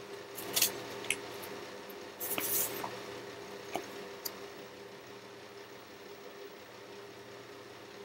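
Handwritten index cards being handled and swapped: a few short paper rustles and taps in the first half, the longest about two and a half seconds in. A steady low hum runs underneath.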